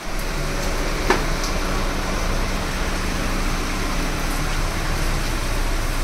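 Steady rushing of a roof-mounted air-conditioner's blowers inside a Maruti Eeco van's cabin, over a low steady hum; a single short click about a second in.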